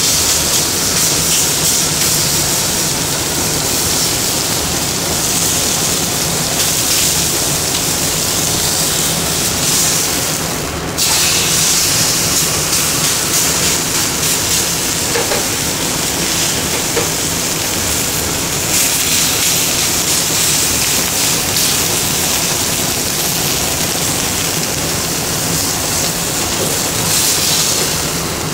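Beef steak sizzling in a hot cast-iron grill pan, a steady hiss with fine crackling. The sizzle drops out briefly about eleven seconds in, then comes back.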